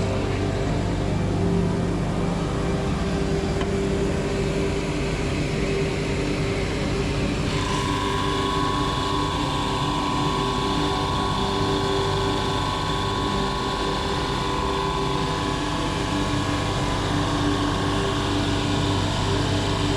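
A workshop power tool running steadily with a machine hum, a higher whine joining in about seven seconds in.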